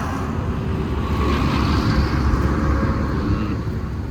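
A vehicle running on the road: a steady low rumble of engine and road noise.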